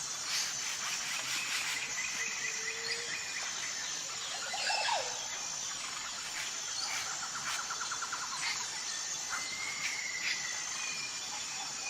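Tropical jungle ambience: a steady high-pitched insect drone, with many birds calling over it in short whistles, rapid trills and chirps, including a falling call about five seconds in.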